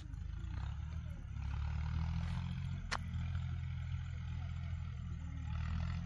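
A vehicle engine running steadily at low revs, a low hum that swells slightly in the middle, with one sharp click about halfway through.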